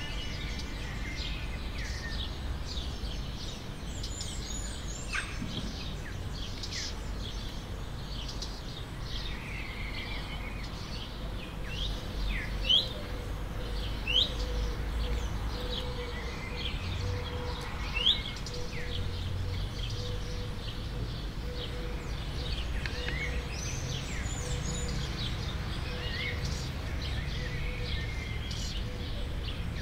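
Small birds chirping and calling over a steady low background rumble, with three louder, sharp rising chirps standing out in the middle stretch.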